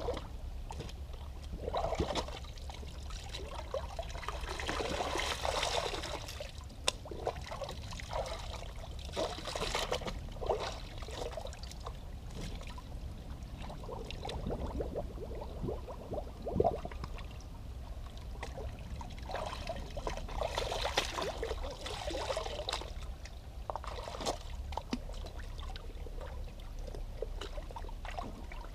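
Shallow stream trickling over stones, with several bursts of splashing and pouring as skate shoes are pushed under, filled and lifted in the water. The strongest bursts come about five and about twenty-one seconds in.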